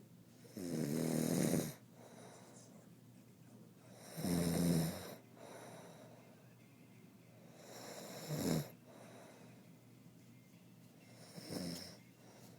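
A sleeping man snoring: four snores, each about a second long and coming every three and a half to four seconds, the last one shorter and quieter.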